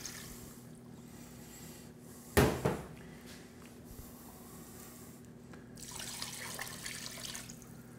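Water pouring and splashing from a glass measuring cup into a slow cooker's crock over raw meat. One short, louder noise about two and a half seconds in.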